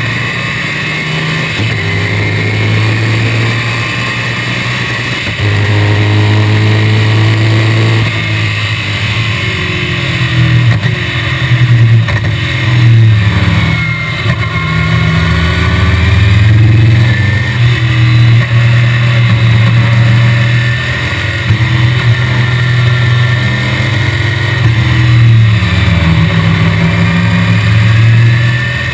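Chevrolet small-block V8 of a 1965 BTM Cheetah race car at racing speed, heard from the open cockpit: the engine note climbs under full throttle and drops back several times as it shifts gears and lifts for corners, with steady wind rush over the top.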